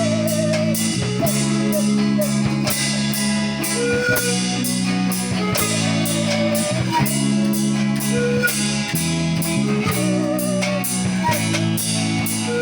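Acoustic song played on bamboo pan pipes with guitar, over a steady, even beat.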